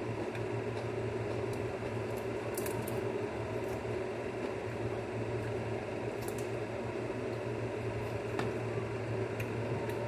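Steady mechanical hum of a room appliance, with a few faint clicks and squishes of chewing and picking at fried bird meat with the fingers.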